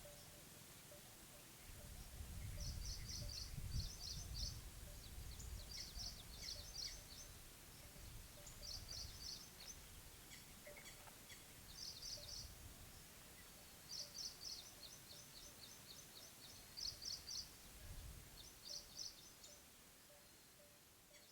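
A small songbird singing short, rapid high trills, repeated every second or two, in faint outdoor mountain ambience. A low rumble swells about two seconds in and briefly again near the end.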